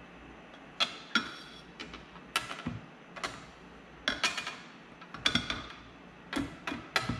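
Irregular sharp clinks and knocks as an outboard lower unit is handled and its steel drive shaft and housing bump against the midsection while being slid back into place. There are about a dozen, some in quick pairs, and several ring briefly like metal.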